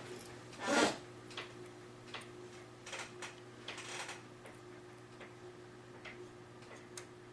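Small screwdriver clicking and scraping against a tiny screw that will not catch its thread in a laptop's plastic base: scattered light ticks, one louder scrape about a second in, over a faint steady hum.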